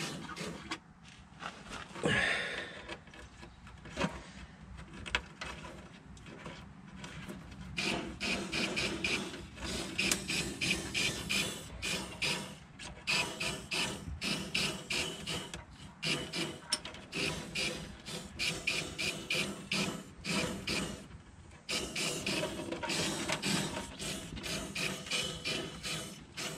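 Aerosol can of rust-proofing oil spraying through a long plastic extension hose inside a truck's hollow rocker panel, while the hose is worked back out through the access hole. The hose rasps and squeaks against the hole in quick, repeated short strokes, becoming busier about eight seconds in.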